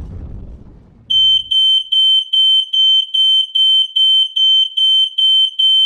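A low rumble dies away in the first second, then a loud, high-pitched electronic alarm starts beeping rapidly, about two and a half beeps a second.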